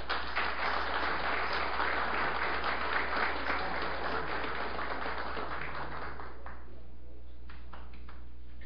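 Audience applauding, a dense clapping that dies away about six and a half seconds in, with a few last separate claps near the end.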